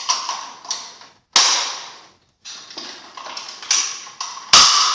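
Steel parts of an SKS rifle clicking and clacking together as they are fitted back in place, with the trigger assembly being seated in the stock. About half a dozen sharp metallic clicks, each ringing briefly, with the loudest near the end.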